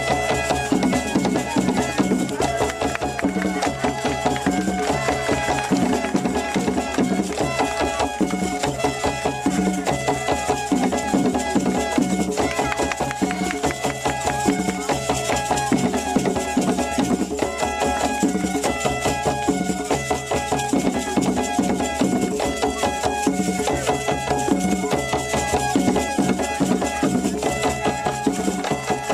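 Traditional African dance music: fast, dense drumming and percussion with a short melodic figure repeating over it.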